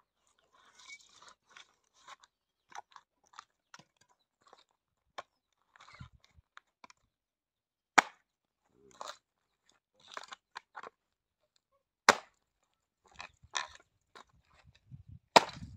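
Axe chopping wood: three sharp chopping strokes, about halfway through, again some four seconds later and near the end, with small cracking and crackling of the wood between them.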